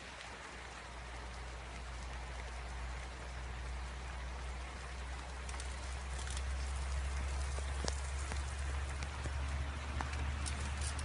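Steady rain falling on wet ground and puddles, with occasional sharper drips and a steady low hum underneath, growing a little louder.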